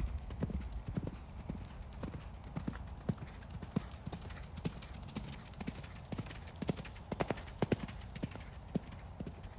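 A horse's hooves striking sand-and-gravel arena footing at a canter: a continuing run of dull thuds. The sharpest, loudest strikes come about seven seconds in.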